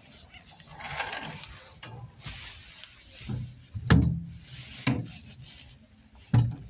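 Three dull thumps, the first and last the loudest, with rubbing and shuffling noises between them.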